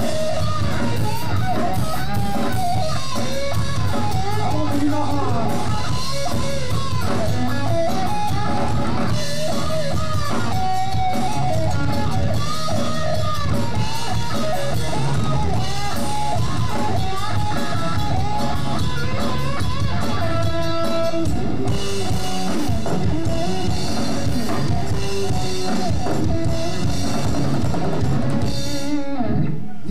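Live rock band playing electric guitar, electric bass and drum kit, with bending guitar lines over a steady bass-drum beat. The music stops about a second before the end.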